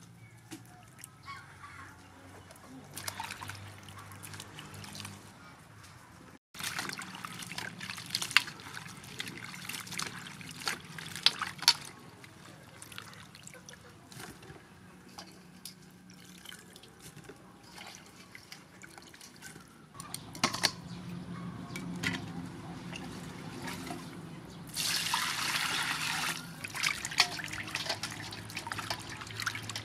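Hands handling food with scattered small clicks and rustles, then water pouring into a large metal bowl for a few seconds near the end, followed by splashing and sloshing as raw meat is washed by hand in it.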